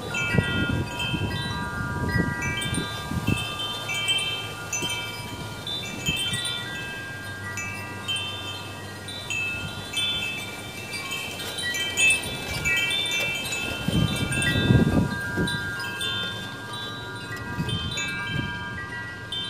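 Wind chimes ringing, many overlapping metal tones struck in turn and left to ring. A low rumble comes in near the start and again about two-thirds of the way through.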